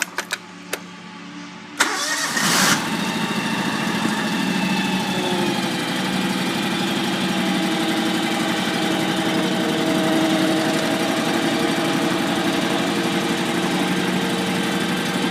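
Riding lawn mower engine: a few clicks, then about two seconds in it comes up loud with a short rush of noise and settles into steady running.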